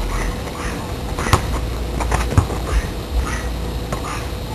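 Faint voices of people playing outside, with two sharp knocks about a second apart and a steady low rumble underneath.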